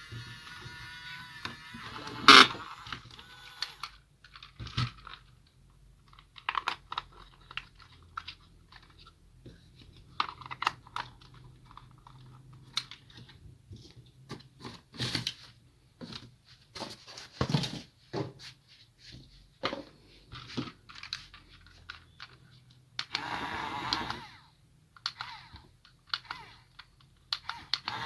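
Toy RC excavator being handled: scattered plastic and metal clicks, taps and light rustles, one sharp click about two seconds in. Its small geared electric motors whir briefly at the start and again near the end.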